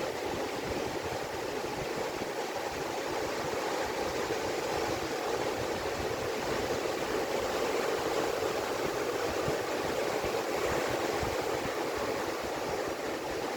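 Ocean surf washing onto a beach: a steady rush of breaking waves that swells a little in the middle and eases near the end.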